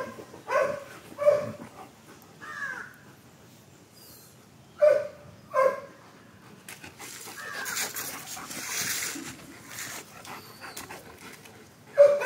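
German Shepherds barking in play: short single barks about a second apart, a pause, two more barks, then a few seconds of rough noise and another bark near the end.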